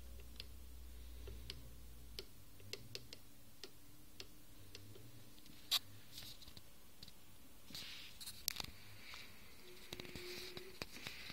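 Faint, irregular clicks and light rustling from a hand-held phone being handled while it films, with one sharper click about halfway through. A low hum is present for the first two seconds, and a short steady tone sounds near the end.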